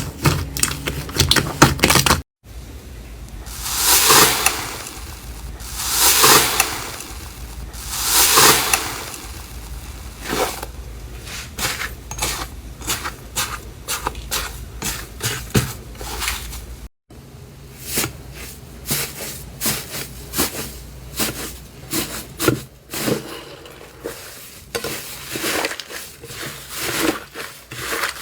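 Slime being handled and pressed by hand in several edited clips: first a rapid run of small clicking pops, then three long swelling squishes about two seconds apart fading into fine crackling, and after a cut about two-thirds of the way in, a steady patter of crackly pops.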